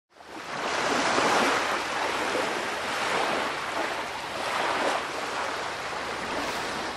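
Rushing water like surging waves, fading in over the first second, then swelling and easing a few times without any tone.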